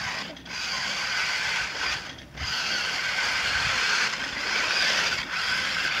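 Toy remote-control monster truck's electric motor and gearbox whirring as it drives, with brief stops about half a second and two seconds in.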